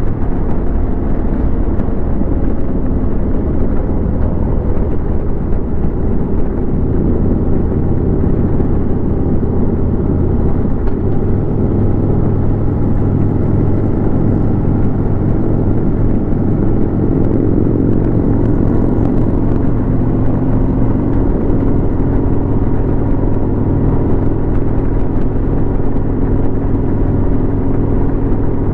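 Harley-Davidson Road King's V-twin engine running steadily at highway cruising speed, with wind rushing past the microphone.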